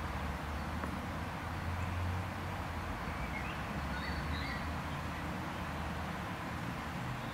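Outdoor ambience: a steady low rumble and hiss, with a few faint bird chirps about three to four seconds in.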